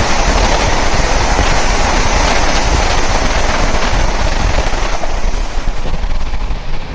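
Another passenger train passing close alongside at speed, heard from the open door of the moving Taj Express: a loud rush of wind and rapid wheel clatter, easing about five seconds in as the last coach goes by.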